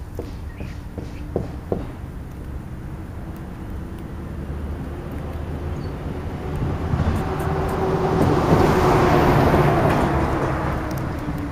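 A motor vehicle passing by: its tyre and engine noise swells to a peak in the latter half and then fades, with an engine tone sliding slowly lower as it goes. A few sharp taps sound near the start.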